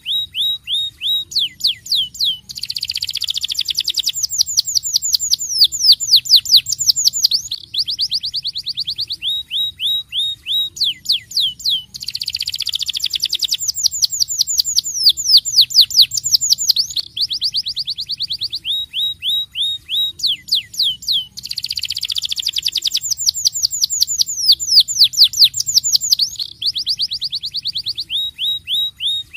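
Domestic canary singing a fast rolling song. It gives long, high trills of rapid falling whistles, broken by slower runs of separate notes, and the same sequence of phrases repeats about every ten seconds.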